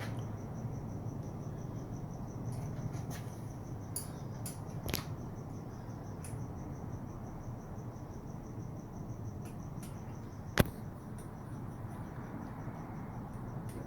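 A cricket chirping steadily in rapid, even pulses over a low background hum, with a few light clicks of handled tools or parts and one sharp click about two-thirds of the way through.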